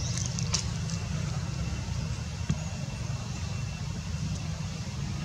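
Outdoor background noise: a steady low rumble, with a few faint short clicks in the first second and one sharper click about halfway through.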